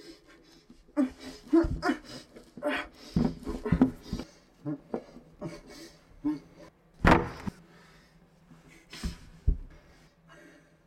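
A gagged man's muffled groans and heavy panting through the cloth gag, in short irregular bursts, with one louder burst about seven seconds in, dying away near the end.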